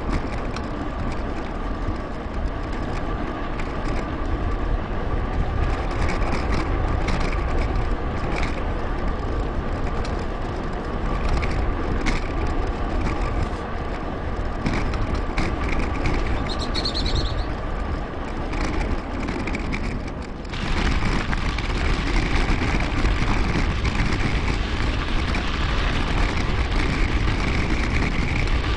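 Wind buffeting a bike-mounted action camera's microphone, with tyre and road noise from a mountain bike riding along a path, played back sped up. The sound shifts abruptly about twenty seconds in and is brighter after that.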